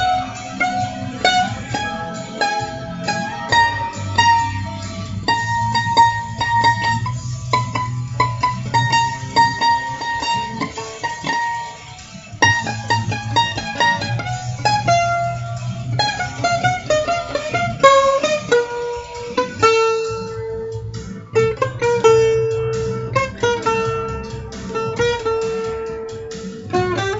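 Guitar improvising lines of quick picked single notes over a steady low tone. In the last third it keeps coming back to one repeated note.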